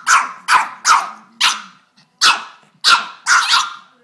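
Rubber squeaky duck squeaked over and over as a pug works it with its jaws: about eight short, sharp squeaks, roughly two a second, with a brief pause about two seconds in.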